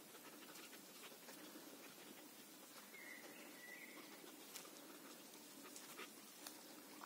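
Near silence with faint scattered soft clicks and rustles as a Samoyed nibbles leafy plants, and a short high bird chirp about three seconds in.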